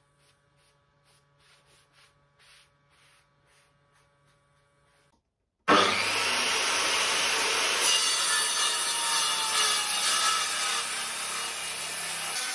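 Faint, quick rubbing strokes of a hand sanding block on the edge of a wooden table leg. About five and a half seconds in, a circular saw sets in abruptly, already cutting, and runs steadily through the edge of a live-edge ash slab. The saw is much the louder of the two.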